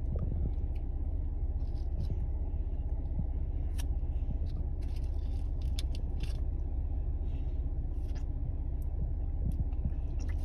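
Steady low rumble inside a car, with scattered small clicks and rustles as a child handles a Fun Dip candy packet.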